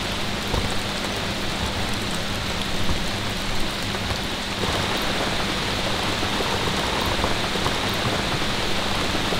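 Steady rain falling on a camping tent, heard from inside.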